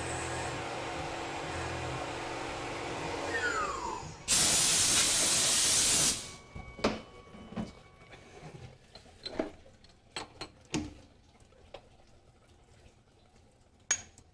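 Tormach PCNC 1100 CNC mill running steadily as the counterbore cut finishes, then its spindle winds down in a falling whine about three and a half seconds in. A loud hiss of compressed air follows for about two seconds, then scattered clicks and knocks.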